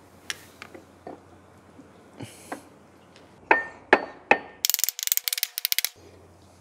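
A few light taps, then three sharp hammer blows on a wooden block held against the A/C compressor pulley, tapping it into place, each ringing briefly; a quick run of clicks follows.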